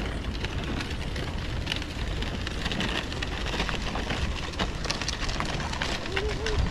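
Street ambience on a walk: a steady rush of traffic noise with many scattered small clicks and taps.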